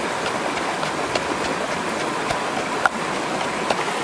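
Steady rush of a flowing stream, with a series of soft knocks from a wooden pestle pounding chili paste in a wooden mortar.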